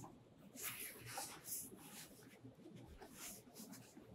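Faint rustling and brushing of a Buck Trail soft fabric recurve bow case being folded and handled, in several short, scattered swishes.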